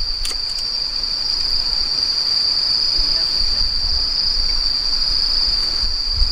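Steady, high-pitched chorus of crickets, with a few faint clicks near the start from the small wood fire being tended.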